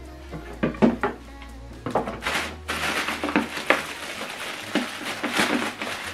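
Clear plastic accessory bags crinkling and rustling as bagged cables are handled, starting about two seconds in. Before that come a few sharp knocks and clicks of items being moved on a table.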